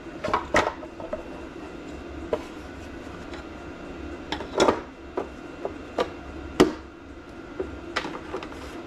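Irregular clicks and knocks of a diesel heater's plastic outer case being handled and pressed together around the heater unit.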